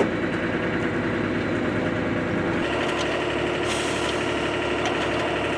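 Steady drone of a running engine, with no distinct impacts. About two and a half seconds in the sound changes abruptly: the deep rumble drops away and a steady hum comes forward.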